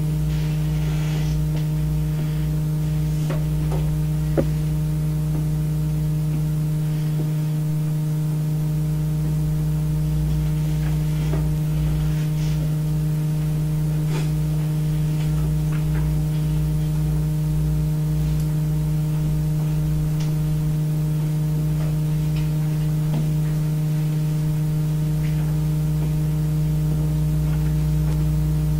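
Steady electrical hum with a few fainter overtones above it, over a low rumble. Faint scattered taps sound throughout, and there is one sharp click about four seconds in.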